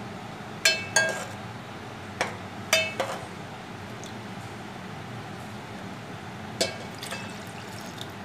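Slotted steel spoon stirring watery gravy in an aluminium pot, clinking sharply against the pot several times in the first three seconds and once more near the end, over a steady low hiss.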